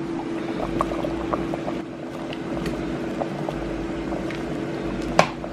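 A steady hum with a rushing noise under it, scattered light taps, and one sharp knock about five seconds in.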